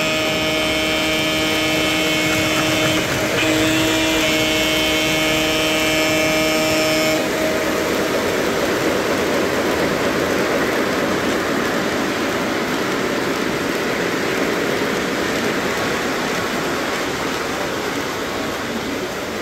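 O-gauge three-rail model Santa Fe F-unit diesel sounding its electronic horn in two long blasts, which end about seven seconds in. After that comes the steady noise of the locomotives and cars rolling past on the three-rail track.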